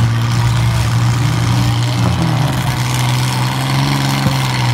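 Engine of a modified compact demolition derby car running at steady, unchanging revs, with a faint knock about four seconds in.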